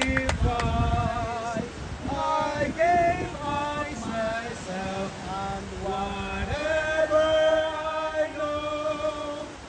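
A group of men and women singing a hymn together, with long held notes.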